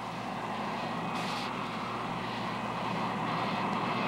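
Steady aircraft engine noise that grows gradually louder, with a short hiss about a second in.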